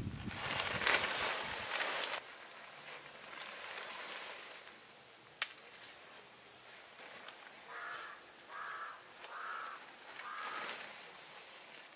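Tent fabric rustling as it is picked up and handled, then a sharp click about five seconds in. Near the end, a bird calls four times in short, evenly spaced calls.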